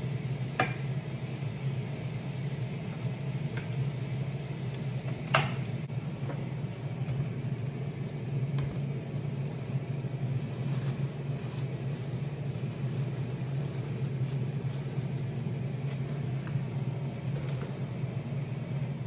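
Redfish pieces deep-frying in a pan of hot oil, a steady sizzle over a low hum, with a metal skimmer clinking a few times; the sharpest clink comes about five seconds in.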